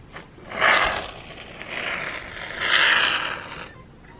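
Aerosol can of expanding polyurethane foam hissing as foam is pushed out through its straw nozzle, in two bursts: a short one, then a longer one about two seconds long.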